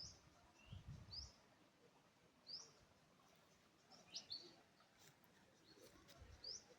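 A bird calling faintly with short, high, rising chirps, one every second or so, over quiet background, with a few soft low bumps.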